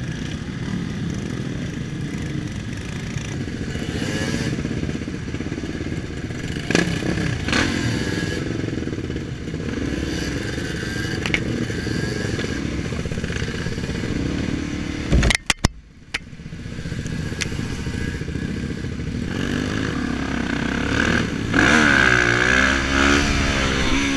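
Dirt bikes riding in a group, their engines running steadily. The sound drops out briefly about two-thirds of the way through, with a couple of sharp clicks. Near the end an engine revs, its pitch rising and falling.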